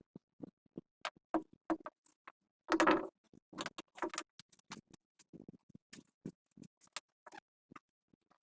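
Irregular clicks, taps and knocks of tools and parts being handled during work on a generator, with a louder clatter about three seconds in; the engine is not running.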